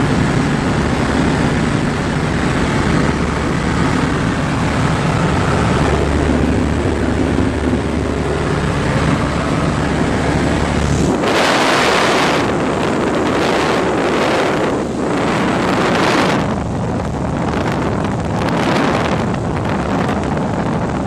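Cockpit sound of a 1946 Ercoupe 415-C in flight with the windows open: the steady drone of its small piston engine and propeller under rushing air. From about eleven seconds in, heavy wind buffets the microphone in repeated gusts.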